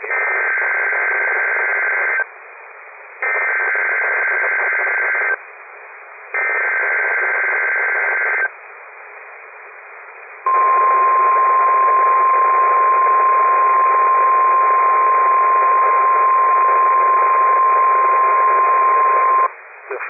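NOAA Weather Radio Emergency Alert System activation, heard over radio static. First come three bursts of SAME header data, each a shrill two-tone digital screech of about two seconds with short breaks between them. Then the steady 1050 Hz weather radio warning tone holds for about nine seconds, announcing a Child Abduction Emergency (AMBER Alert).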